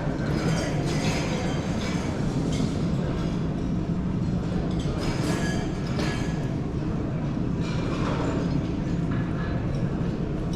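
Heavy construction machinery running steadily with a low engine hum, with repeated metallic clanks and scrapes.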